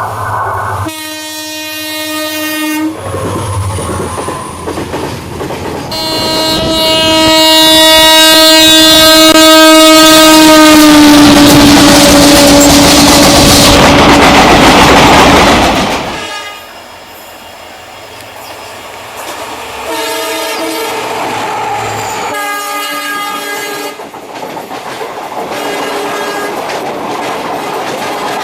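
Indian Railways locomotive horns sounding in a run of separate blasts: a short one, then a long one whose pitch drops as the locomotive passes at speed with loud rushing wheel-and-rail noise, then several more blasts near the end.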